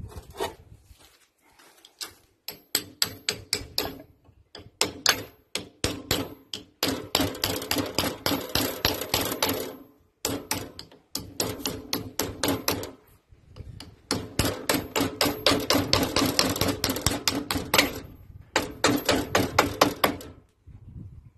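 Small hammer tapping steel on the end of a starter motor shaft clamped in a vise, driving a fitting down onto it. The taps come quickly, several a second, in about six runs with short pauses between, and each run rings metallically.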